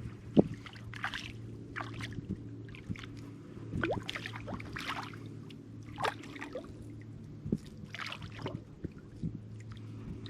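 Electric trolling motor humming steadily as it holds the boat on spot-lock, with irregular splashes and trickles of water, the sharpest splash about half a second in.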